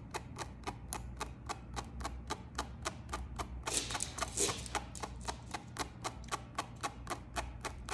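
Tweezers clicking rapidly and evenly, about four clicks a second, as they pluck hairs from a lace frontal. A brief rustle comes about halfway through.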